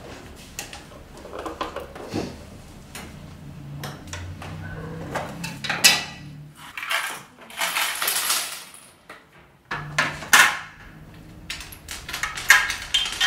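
Small metal sewing items, pins and the like, clinking and rattling as they are rummaged through on a tabletop. Twice a sewing machine runs briefly underneath, the first time for about three seconds.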